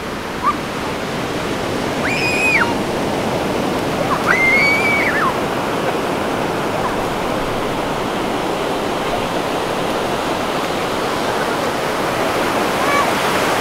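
Ocean surf breaking and washing up the sand in a steady rush, with two high-pitched squeals about two seconds apart.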